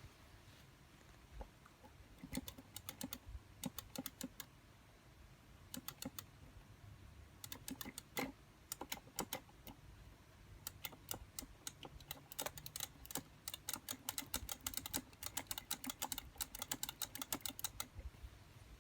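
Buttons on an arcade controller clicking in quick runs of many presses, with short pauses between the runs and the longest, densest run in the second half.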